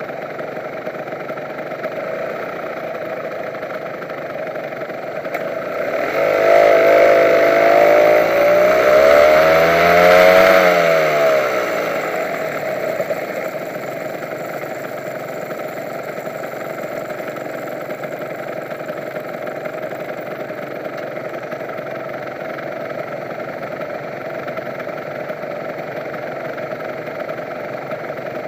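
Honda NSR150's two-stroke motorcycle engine idling steadily. From about six seconds in it speeds up, with its pitch rising to a peak near ten seconds, then eases back to idle by about twelve seconds.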